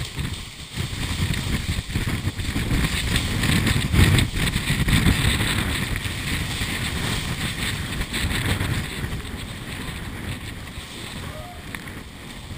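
Typhoon-force wind gusting through a pedestrian underpass and buffeting the microphone: a heavy rumble that swells to its loudest about four seconds in, then slowly eases.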